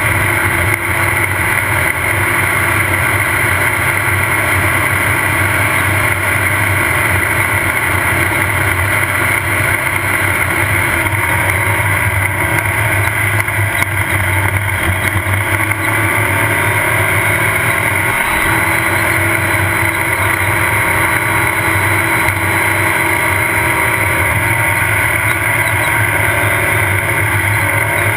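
Off-road race car's engine running at a steady high speed, with heavy road and wind noise from driving over dirt, heard from onboard the car; the engine note holds steady without revving up or down.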